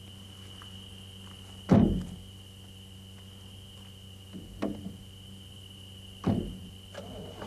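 Three heavy thuds, the first and loudest about two seconds in, the others spaced a couple of seconds apart, over a steady hum and a faint high whine.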